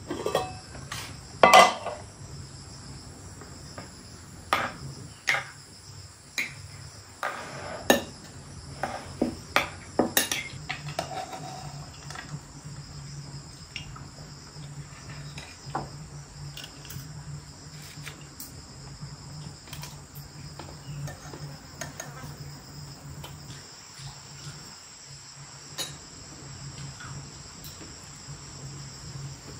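Steady high-pitched insect chirring throughout, with a string of sharp clinks and knocks of dishes and kitchen utensils in the first ten seconds or so, then only scattered clinks.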